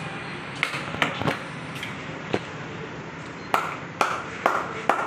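Metal skimmer clanking against a large iron karahi: about nine irregular sharp strikes, the later ones ringing briefly, over a steady hiss.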